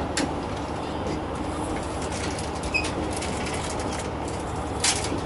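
Yufuin no Mori diesel train running slowly, heard from the passenger car: a steady low rumble with scattered light clicks and knocks.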